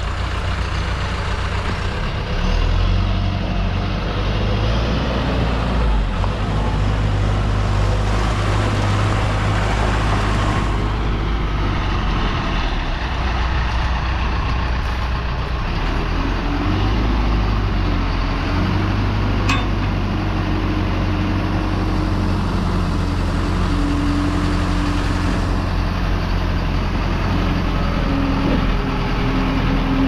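John Deere 310EK loader backhoe's diesel engine running steadily with a deep, even hum. A higher whine comes and goes over it in the second half.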